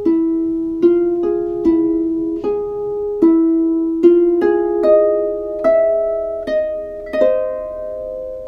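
Music: a slow melody of single plucked-string notes, like a harp, each struck and left ringing as it fades, about one note every half second to second.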